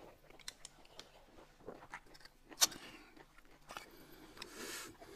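People chewing and biting food, with small scattered clicks, one sharp click about two and a half seconds in, and a soft breathy rush near the end.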